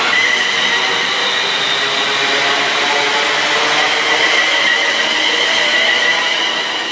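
Class 350 Desiro electric multiple unit running past close by: steady high-pitched electric whine over the rumble of wheels on rail. It grows slightly fainter near the end as the train draws away.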